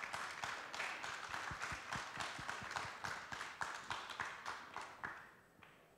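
Audience applauding: a round of many hands clapping that thins out and stops near the end.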